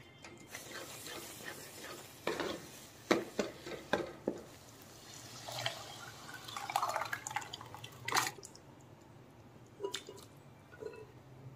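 A spatula stirring and scraping thick curry masala in a wok, with several knocks against the pan; about halfway through, boiled chickpeas and their cooking water are poured in with a splashing pour, followed by a sharp knock and a little more stirring.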